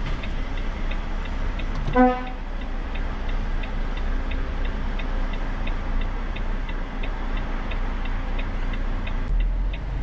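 Turn-signal indicator ticking steadily, about three ticks a second, inside a Volvo truck cab over the low rumble of the engine and road. A short, loud beep sounds once about two seconds in.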